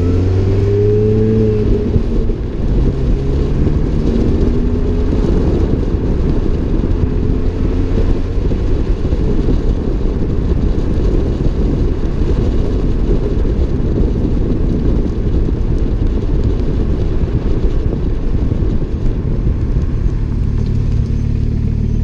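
Supercharged 1.6-litre four-cylinder of a 2005 Mini Cooper S R53, fitted with an Alta cat-back exhaust, Alta intake and 17% supercharger pulley, accelerating with rising pitch, then driving under heavy wind buffeting and road noise on the fender-mounted microphone. Near the end the engine settles to a steady low note.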